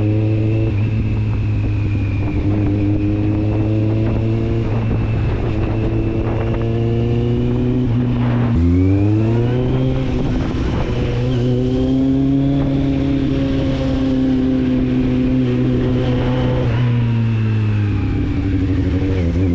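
Kawasaki Z750's inline four-cylinder engine and exhaust running under way at a steady pitch. Its note drops sharply about eight and a half seconds in, then climbs as the throttle is opened again. It eases down once more near the end.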